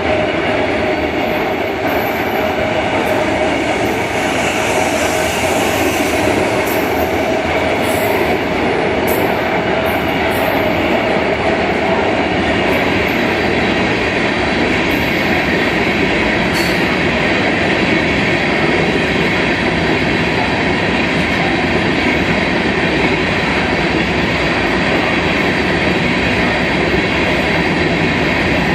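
Freight train of auto-rack cars rolling past on the rails: a loud, steady rumble of steel wheels on track. A faint steady whine runs through the first half.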